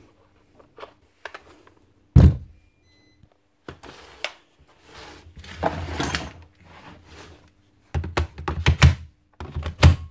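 Handling knocks on a Makita DUC405 cordless chainsaw on a bench: a single heavy thunk about two seconds in, then scraping and shuffling. Near the end comes a quick run of clicks and thuds as the batteries are pushed into their slots.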